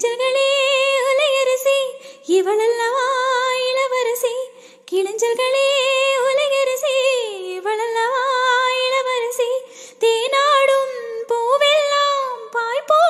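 Female voice singing a wordless melody of long held notes with vibrato, in several phrases with short breaths between them: song music.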